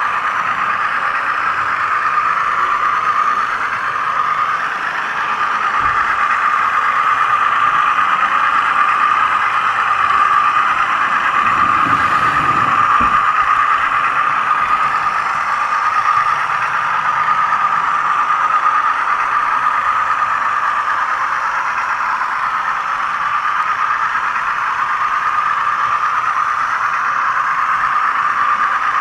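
HO scale model locomotive running along the track, heard from a camera riding on the train: a steady, fairly high-pitched hum of the running gear, with a brief low rumble about twelve seconds in.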